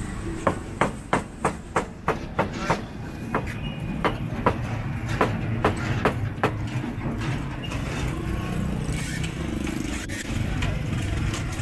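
A run of sharp knocks from metal kitchen tools at a street-food grill, about two to three a second, stopping after about six seconds, over a steady low rumble of street traffic.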